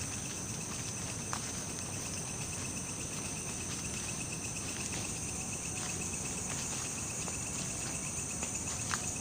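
Insects chirring in a steady, continuous high-pitched trill, with a couple of faint clicks.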